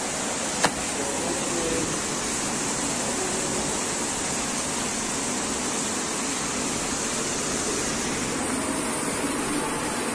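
Steady, even background noise with no speech, broken once by a single sharp click about two-thirds of a second in.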